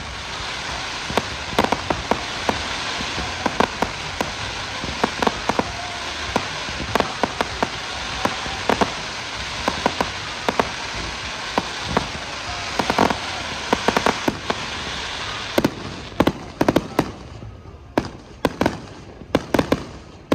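Fireworks: a steady crackling hiss under many sharp bangs and pops from bursting shells. Near the end the hiss drops away, leaving a fast run of bangs.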